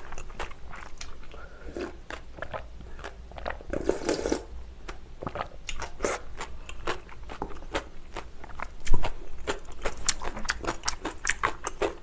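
Close-miked eating sounds of spicy cold noodles: sips of broth from a glass bowl and a steady run of small crunchy chewing clicks. A louder knock comes about nine seconds in.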